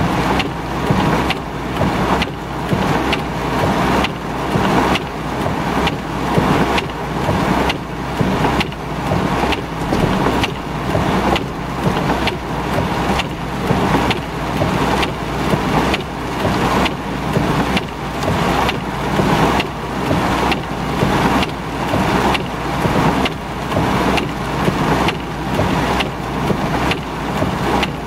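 Heavy thunderstorm rain pouring onto a car's roof and windshield, heard from inside the car. The windshield wipers sweep in a steady rhythm, a little faster than once a second.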